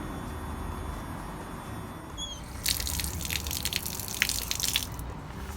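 Water splashing and pouring for about two seconds, starting near the middle, over a steady low rumble.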